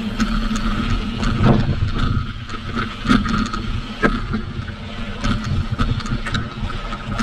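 Mountain bike riding down a dirt trail: a steady rumble of tyres and rattling bike parts, with sharp knocks from bumps about a second and a half, three and four seconds in.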